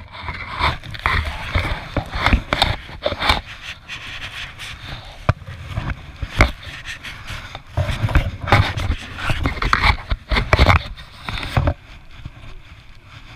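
A child's red plastic toy snow shovel scraping and scooping snow, mixed with snowsuit fabric rubbing and knocking against the camera the child wears. The noise comes and goes irregularly with many sharp knocks, and eases off near the end.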